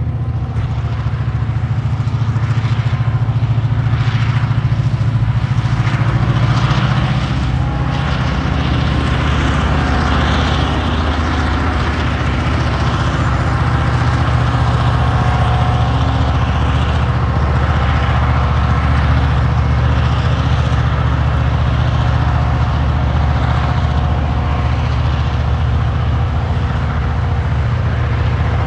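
TasRail TR-class diesel locomotives under heavy load, hauling a coal train up a grade: a steady, deep engine drone, loudest as the locomotives pass about six seconds in.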